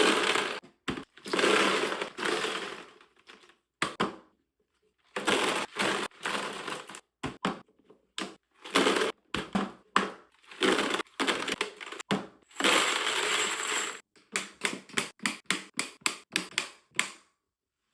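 Ammunition and its boxes being handled: several stretches of rattling and rustling, then a quick run of about a dozen sharp clicks near the end.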